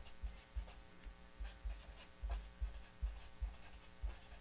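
Felt-tip marker writing on paper: faint, short scratchy strokes in an irregular rhythm, with soft low thuds and a faint steady hum underneath.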